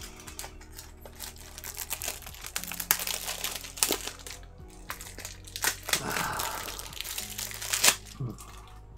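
Crinkling and rustling of packaging, with scattered clicks and scrapes, as a Blu-ray case is pulled out of its wrapping. The handling is busiest through the middle and ends near the end.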